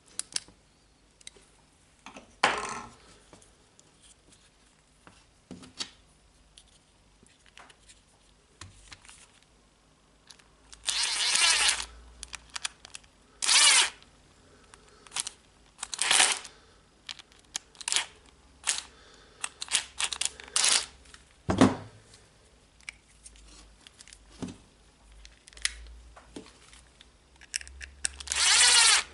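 Intermittent clicks, scrapes and short rasping rustles of small hand work: a replacement mains plug being assembled and its terminal screws tightened on the grinder's power cord.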